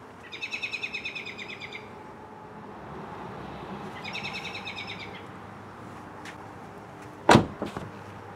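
A 2010 Ford Mustang coupe's door being shut with a single loud thud about seven seconds in, followed by a couple of small clicks. Earlier, a bird sings two rapid trills.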